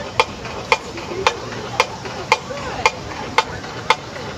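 Drum sticks clicking a steady marching tempo, a sharp tick about every half second, with crowd chatter behind.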